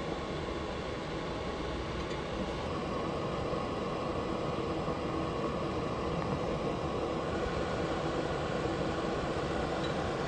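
Soldering fume extractor fan running with a steady hiss and a faint hum.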